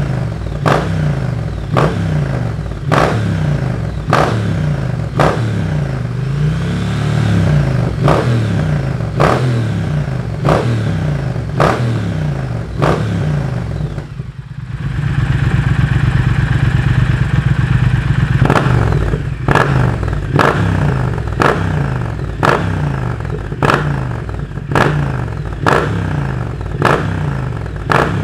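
Triumph Speed Twin parallel-twin engine, de-catted and breathing through a Motone X-pipe and Zard slip-on silencer, blipped repeatedly about once a second with a sharp crack on each blip. Partway through, the revs are held higher for about four seconds, then the blipping resumes.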